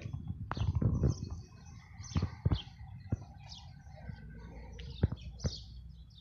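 Small birds chirping over and over, with several dull thumps and knocks in between, the loudest in the first half.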